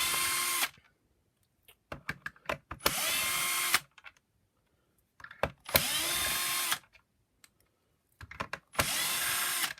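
Cordless drill-driver spinning out Torx screws: four short runs of about a second each, the motor's whine rising as it spins up, with small clicks of handling between runs.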